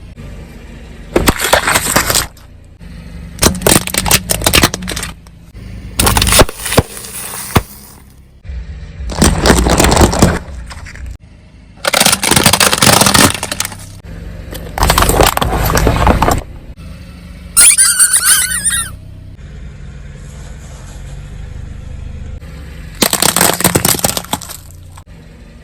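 A car tyre crushing objects: about eight separate crunching, cracking bursts, each a second or two long, with short pauses between them.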